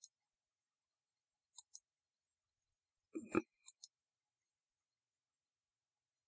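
Computer mouse button clicks, each a quick click pair, about a second and a half in and again near four seconds. Just before the second pair there is a short soft lower sound.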